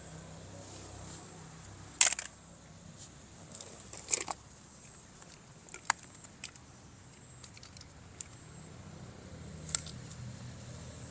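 Scattered sharp clicks and taps from handling plastic toy parts: the loudest about two seconds in, a quick double click about four seconds in, and a few fainter ones later, over a faint low hum.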